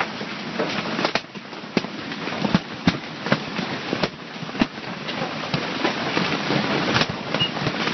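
Golf-ball-sized hailstones pelting a fishing bivvy and the ground around it: a steady rushing hiss with irregular hard cracks, several a second.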